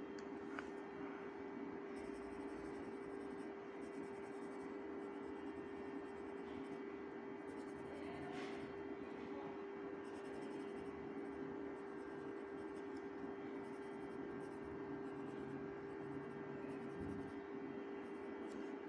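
Pencil scratching on paper, over a steady low electrical hum.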